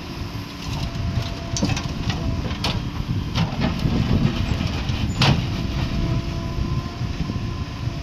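JCB 3DX backhoe loader's diesel engine running under load as the backhoe digs and loads soil, with a faint steady whine over the engine. Several sharp knocks and scrapes cut through, the loudest a little past five seconds in.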